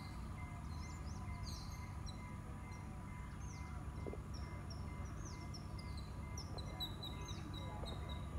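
Birds chirping, with many short high calls that sweep downward, repeated over and over, above a steady low background hum of outdoor noise.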